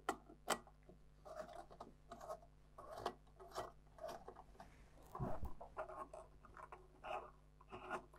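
Hand-screwing a cable's F connector onto the plastic cable gland of a flowmeter transmitter housing: faint scattered clicks and rubbing of cable and fittings, with two sharper clicks at the start.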